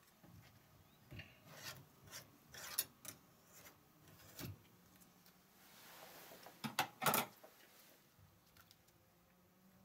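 Metal screw lid of a glass Mason jar being twisted off by gloved hands: a series of short scrapes and clicks of metal on glass, with the loudest couple of scrapes about seven seconds in.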